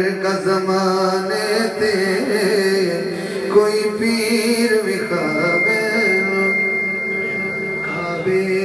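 A man singing a Punjabi manqabat in naat style, with long, wavering held notes. A thin, steady high tone runs under the second half.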